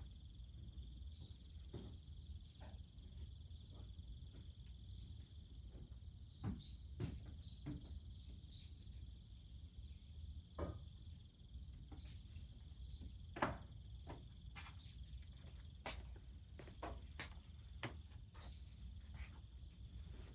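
Wood fire crackling with irregular sharp pops, one louder pop about thirteen seconds in, over a steady high chirring of crickets.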